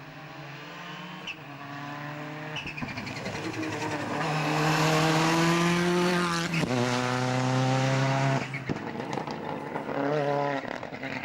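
Rally car engine at full throttle, approaching and rising in pitch through the gears, loudest as it passes close by about six seconds in. The pitch drops sharply at each gear change, then the car pulls away and fades.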